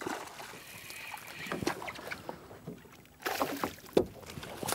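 Water splashing as a hooked tripletail thrashes at the surface, with a louder flurry of splashing about three seconds in as a landing net is dipped under it and scoops it.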